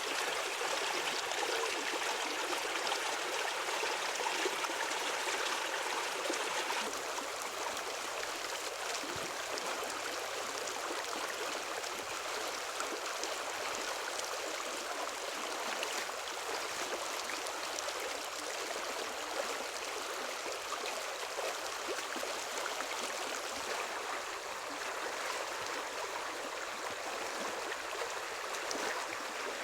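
Flowing stream water, a steady rushing noise, somewhat louder for the first seven seconds.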